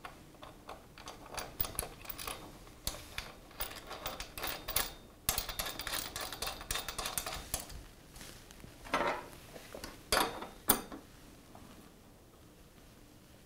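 A steel lock nut and washers clicking and rattling against a threaded rod as the nut is spun on by hand, a quick run of small metallic clicks. Two louder knocks come about two-thirds of the way through as the wrench is brought to the nut.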